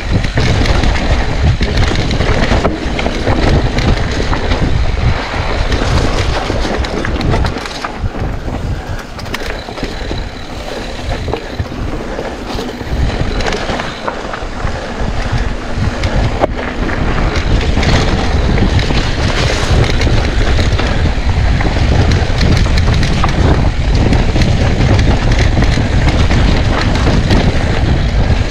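Mountain bike being ridden over a forest trail: tyres rolling over dirt and leaves, with knocks and rattles from the bike over bumps and wind rumbling on the microphone.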